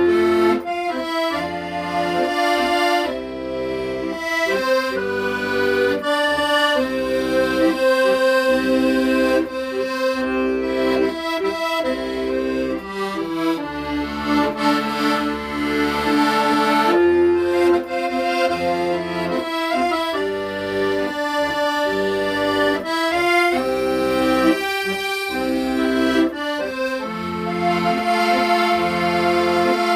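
An accordion plays a slow, sentimental Korean ballad melody. The melody runs over sustained chords and low bass notes that change about once a second.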